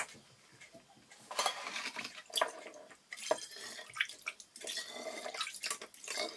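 Grape vinegar being ladled from a plastic basin and poured into a glass bottle: liquid splashing and trickling in irregular pours, starting about a second in, with a few light knocks.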